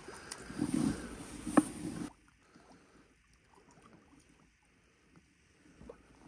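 Light water splashing and sloshing as a hooked trout works at the surface just off the rocks, with a sharp click about one and a half seconds in. The sound drops away abruptly about two seconds in, leaving only faint small splashes.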